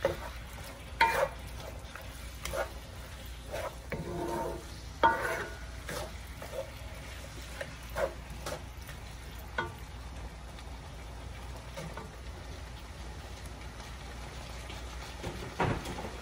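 Wooden spoon stirring and scraping ground meat and chopped vegetables around a HexClad hybrid stainless wok, with irregular knocks of the spoon against the pan over a low frying sizzle. The stirring strokes come often at first and thin out in the second half, with one last knock near the end.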